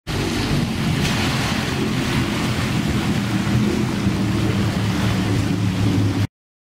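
Offshore racing powerboat's engines running flat out, a steady drone over a hiss of wind and water spray; the sound cuts off abruptly near the end.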